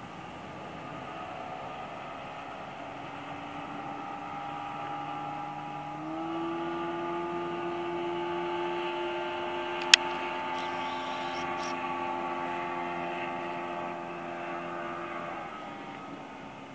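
Mariner 40 HP two-cylinder, twin-carburettor outboard motor running at high speed as the jon boat planes past. The engine tone is steady and steps up in pitch about six seconds in. A single sharp click comes about ten seconds in.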